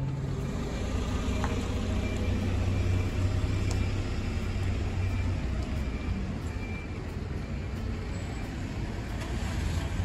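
Road vehicle noise: a motor vehicle running with a steady low rumble that eases off about halfway through.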